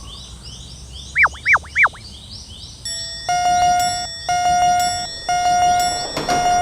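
Cartoon level-crossing sound effects: a fast run of high rising chirps, three loud whistle swoops that rise and fall, then from about three seconds in a crossing warning signal sounding a held chord-like tone about once a second.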